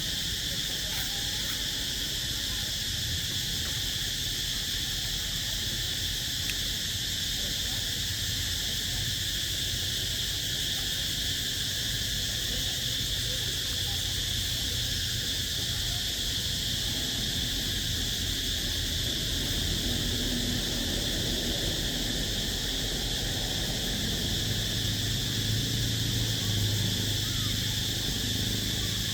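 Steady, high-pitched chorus of insects, with a low hum growing louder near the end.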